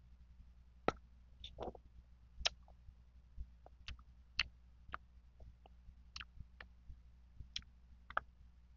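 Close-miked wet mouth clicks and smacks of someone biting and chewing slices of mango, at irregular intervals, over a faint steady low hum.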